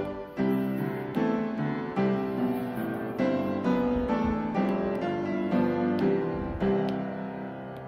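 Soft background piano music: notes and chords struck about every half second to a second, each fading away, the playing growing quieter near the end.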